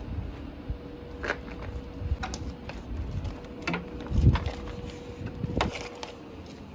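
Hands handling cable, a corrugated conduit and a plastic bag at a van's rear door frame: scattered clicks and rustles, with a heavier knock about four seconds in, over a steady faint hum.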